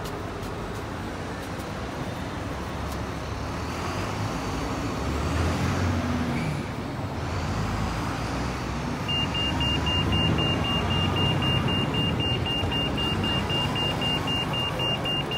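Street traffic: coach and car engines running and passing on the road, rising and falling as vehicles go by. A fast, evenly pulsed high-pitched beeping joins about nine seconds in.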